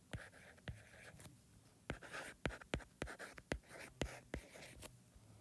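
Faint writing sounds: a pen scratching in short strokes on a writing surface, with frequent sharp taps.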